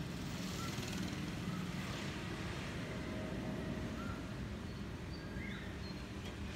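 Steady low rumble of distant engines, with a few faint short high chirps on top.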